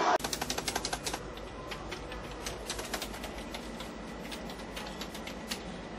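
Typing on a computer keyboard: a quick run of key clicks in the first second, then scattered key presses.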